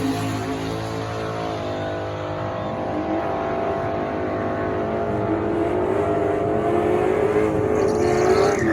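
Big-block V8 Chevrolet Malibu accelerating hard, its engine pitch climbing steadily for several seconds, then dropping off abruptly at the end.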